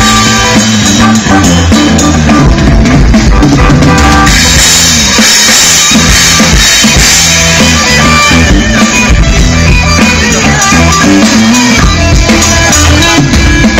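Rock band playing loud through a stage PA during a soundcheck: drum kit with bass drum and snare, with electric guitars over it. The top end brightens about four seconds in.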